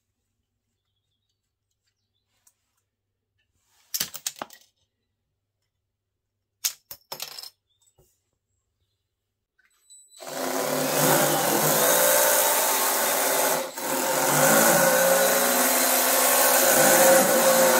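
Two short bursts of plastic clicking from the Lego Technic turret mechanism, about four and seven seconds in. Then, about ten seconds in, the RC tank's electric motors and gear train start up with a loud steady whir as it drives on its plastic tracks, dipping briefly once.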